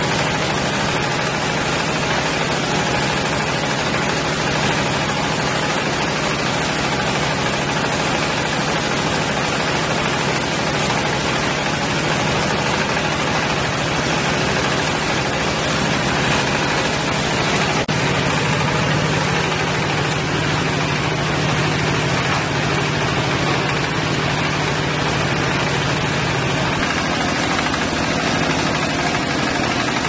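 Diesel engine of a combined round baler and bale wrapper running steadily under the clatter of the machine. The engine's low hum grows stronger about two-thirds of the way through and shifts again near the end.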